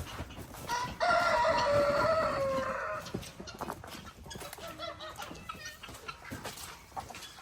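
A rooster crows once, a drawn-out call of about two seconds starting about a second in and falling slightly in pitch at the end, followed by quieter scattered chicken clucks.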